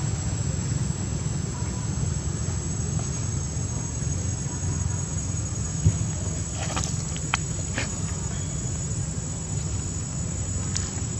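Outdoor ambience of a steady high insect drone over a low, steady rumble. There is one sharp tap just before six seconds in, then a few short chirps over the next two seconds and another near the end.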